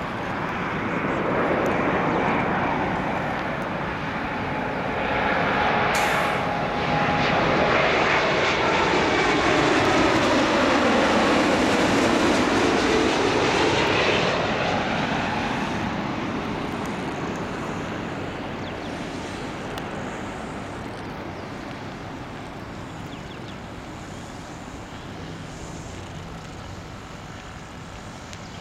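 Boeing 787-8 Dreamliner's twin turbofan engines on landing approach, swelling as the airliner passes low by. It is loudest around the middle with a falling whine as it goes by, then slowly fades away.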